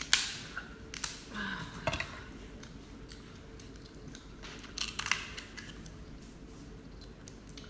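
Kitchen scissors snipping and cracking through a king crab's hard shell: a handful of sharp clicks and cracks spread across several seconds, with quiet gaps between. The cutting goes slowly because the scissors struggle with the shell.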